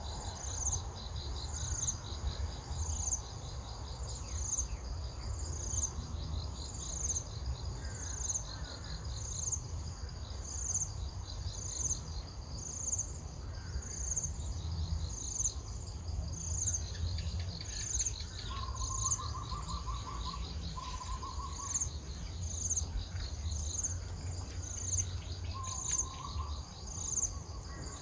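Insects chirping: a high, evenly timed chirp about every second and a half over a continuous high trill. A bird gives three short trills, two about two-thirds of the way in and one near the end, over a steady low rumble.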